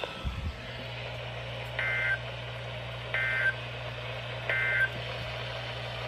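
NOAA weather radio's speaker sounding the Emergency Alert System end-of-message code: three short two-tone digital data bursts, about 1.3 s apart, marking the end of the warning broadcast. A steady low hum runs beneath them.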